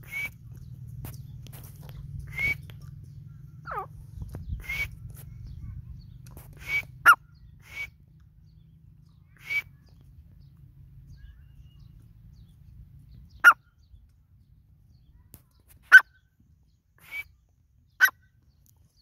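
Grey francolin giving about a dozen short, sharp single calls a second or more apart, some a brief clipped note and some a quick downward-sliding note.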